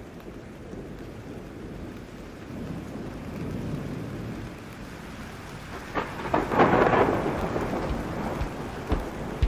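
Thunderstorm: steady rain with a thunderclap about six seconds in, cracking sharply and rumbling off over a second or two, the loudest sound. Near the end come two short low thumps.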